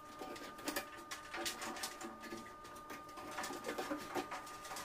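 Irregular clicks, knocks and rattles of a tumble dryer's sheet-metal front panel and drum parts being handled and fitted back into the cabinet. A faint steady high tone runs underneath.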